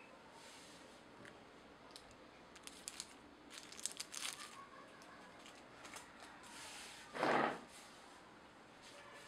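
Quiet room tone with scattered light clicks and crinkling rustles. A short, louder rustle comes about seven seconds in.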